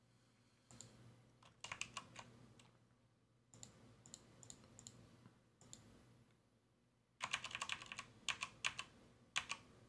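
Computer keyboard keys and mouse clicks in three short flurries, the last and loudest near the end, over a faint steady hum.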